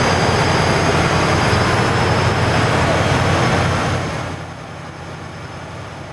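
A tank's diesel engine running loudly with a deep rumble, easing down to a lower, steady run about four seconds in.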